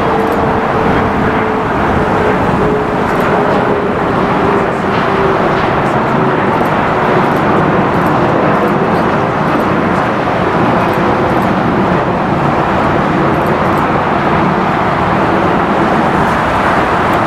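Jet airliner engines running: a loud, steady roar with a humming tone that slowly drops in pitch.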